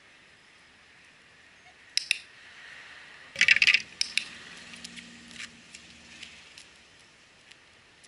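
Dog's collar and leash hardware clinking and jingling as the dog is handled: a sharp double clink about two seconds in, a loud burst of jingling a little after three seconds, then scattered light clinks that fade out.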